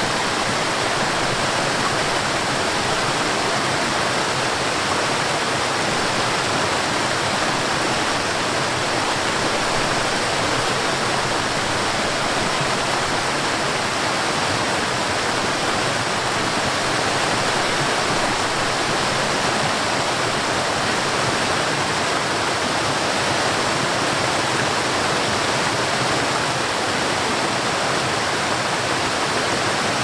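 Waterfall cascading down tiers of rock: a steady, even rush of falling water that never changes.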